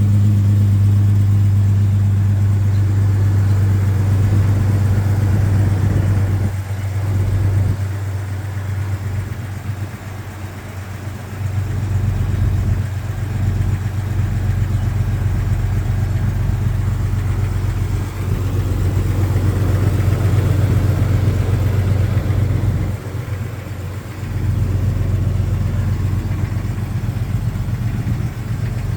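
1999 Jeep XJ Cherokee engine idling steadily after a cold start, with the piston slap of a cold engine. The sound falls off for a few seconds twice, about a quarter of the way in and again past the three-quarter mark.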